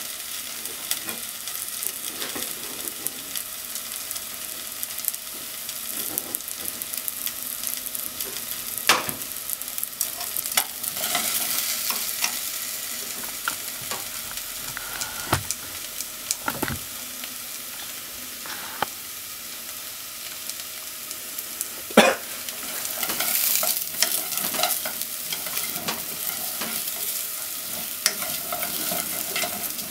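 Potato chunks frying with a steady sizzle in a non-stick pot, while chopsticks and a wooden spatula scrape and tap against the pan as they are turned. A sharper knock comes about a third of the way in and another a little past two-thirds.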